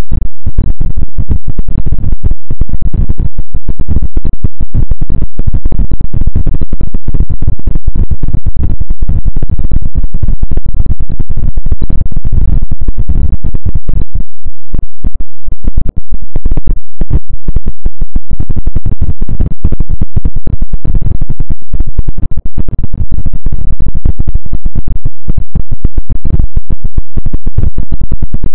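Harsh electronic noise music: a dense, crackling stream of clicks and scratchy noise, heavy in the low end and held at full loudness, with a couple of momentary dropouts.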